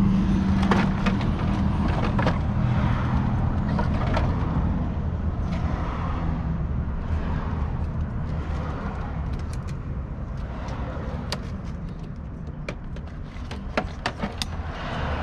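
A motor vehicle engine running with a steady low rumble that slowly fades, over scattered clicks and knocks from work on the bike's plastic fairings.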